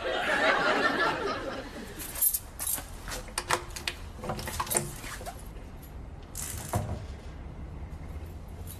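Studio audience laughing for the first couple of seconds, dying away, followed by a scattered series of sharp clicks and light knocks.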